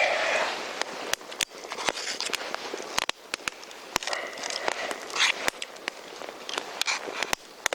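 Wood campfire crackling, with irregular sharp pops, and a brief rustling or crunching of handling or movement about four to five seconds in.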